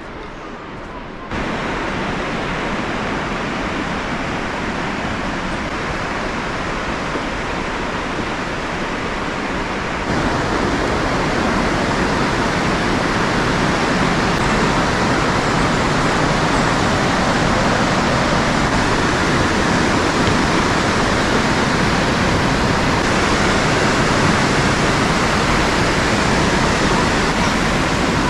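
Río Blanco waterfall: water rushing in a steady, loud, even roar. It steps up in loudness twice, about a second in and again around ten seconds in.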